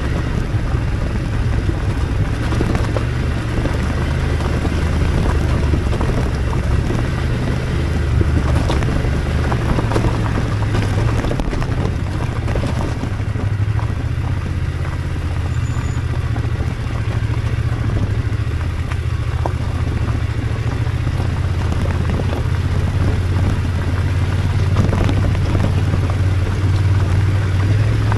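BMW F 850 GS parallel-twin engine running steadily at low speed, with a low, even hum. Loose stones crackle under the tyres on the gravel track.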